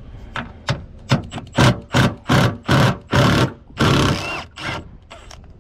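Power drill-driver run in about a dozen short trigger bursts, the longest about four seconds in, backing out a Torx screw that holds the rear hatch door lock actuator.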